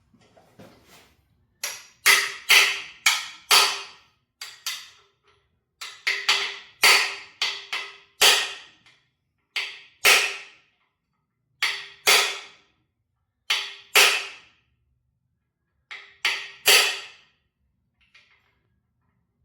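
Hammer blows driving expansion (core) plugs into a 383 stroker engine block: about twenty sharp metallic strikes in uneven groups of two to four, each ringing briefly after the hit.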